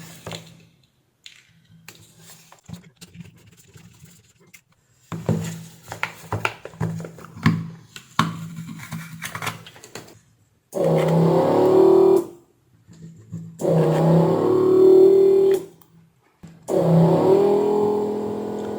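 Background music: quieter at first with scattered sharp clicks, then three loud held phrases of a few seconds each.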